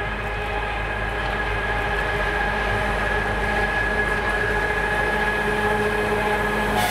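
M62K diesel locomotive running hard as it pulls a freight train toward the listener: a steady engine drone with a held high tone, slowly growing louder as it draws near.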